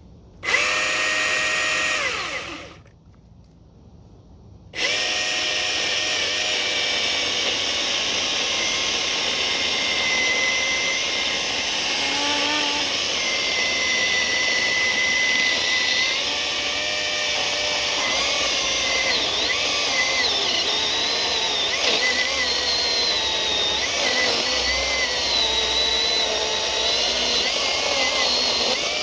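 Milwaukee M18 16-inch cordless electric chainsaw: a short burst of about two seconds that spins down, then after a pause it runs continuously and cuts through a log about 8 to 10 inches thick, its pitch sagging and wavering under load before it winds down at the end.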